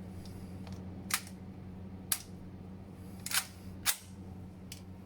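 Gun handling: four sharp mechanical clicks, roughly a second apart, then a faint fifth near the end, over a steady low hum.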